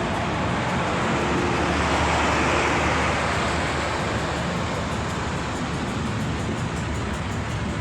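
Road traffic passing: a steady rush of engines and tyres that swells about two to three seconds in and then eases off.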